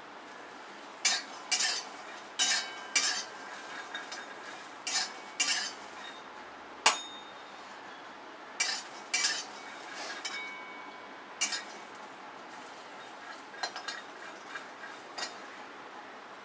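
Flat steel spatula scraping and clanking against a kadhai as it stirs fresh beans being dry-roasted. About a dozen sharp metallic strokes come in irregular bunches, some leaving a brief ring.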